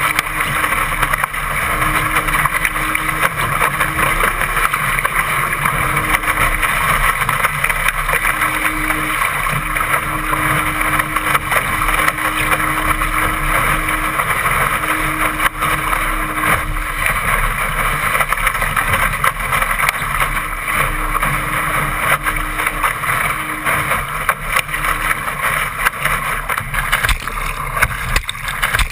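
Water rushing and spraying past the hull of a Laser dinghy sailing fast and heeled in strong wind, mixed with wind buffeting the microphone: a loud, steady rush. A faint low hum comes and goes through the first two-thirds.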